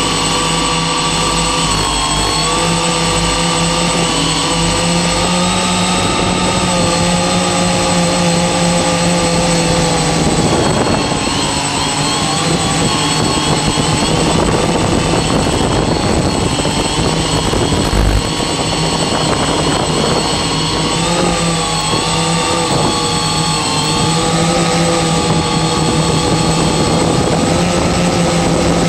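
Multirotor octocopter's motors and propellers whirring steadily in flight, the pitch drifting slightly up and down as the throttle changes.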